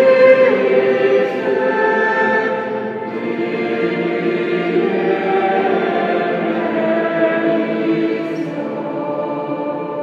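Choir singing a sacred piece in long held chords that ring in the church's reverberant space, growing quieter toward the end.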